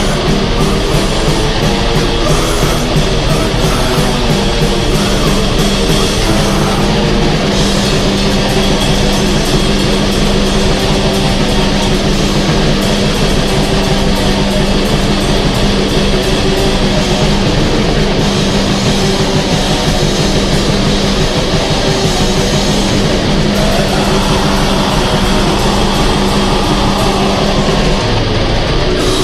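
Extreme metal recording: heavily distorted electric guitars over fast, dense drumming, loud and unbroken throughout.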